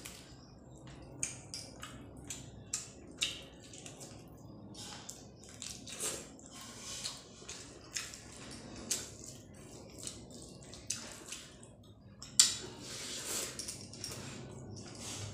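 Eating by hand: fingers squishing and mixing curry-soaked rice on a plate, with wet mouth sounds of chewing, heard as short irregular squelches and clicks. The sharpest click comes about twelve seconds in.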